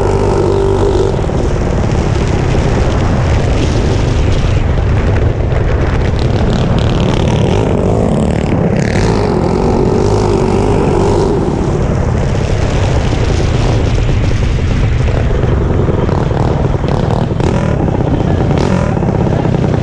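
Mini bike engine running loud and steady, its pitch wavering slightly without hard revving.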